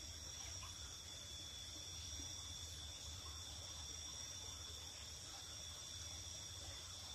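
Night insects trilling steadily in a faint, unbroken high-pitched chorus, with two continuous high tones.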